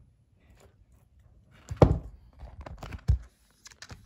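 Two dull thumps about a second apart, with light clicks between them: handling knocks as a toy truck or the camera is moved about on a tabletop.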